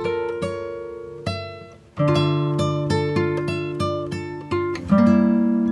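Background music: an acoustic guitar plucking notes in a steady rhythm, with a short break about two seconds in.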